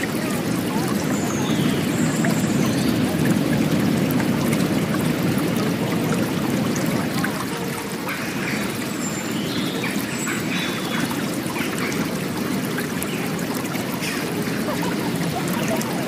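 Steady rush of running water, with short high bird chirps scattered through it.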